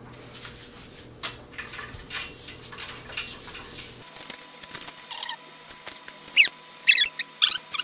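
Small steel bolts, washers and nuts clicking and rattling as they are picked from a pile and put together by hand. In the second half, several short, high squeaks stand out as the loudest sounds.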